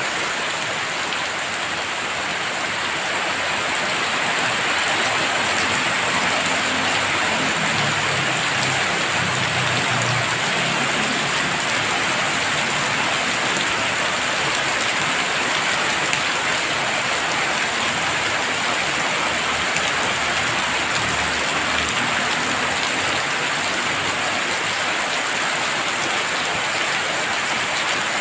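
Heavy rain pouring steadily onto surfaces, a dense, even hiss of many drops.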